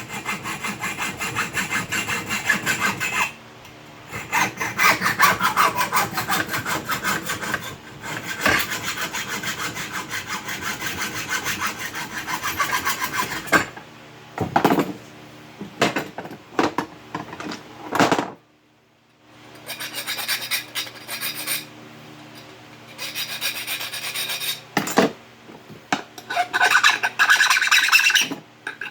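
Hand tool working a metal part: rapid scraping, clicking strokes in runs of several seconds with short pauses, and a few separate sharp knocks about halfway through.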